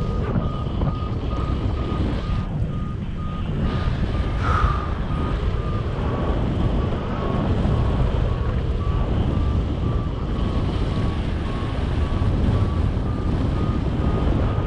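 Paragliding variometer beeping in a steady run of short pulses at a high pitch that drifts slightly up and down, the tone of the glider climbing in lift. Under it, steady wind rush on the microphone from the airflow in flight.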